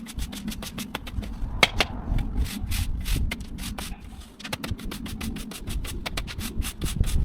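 Stiff broom sweeping dry jointing sand across block paving: quick, repeated scratchy strokes, brushing sand into the joints after pressure washing.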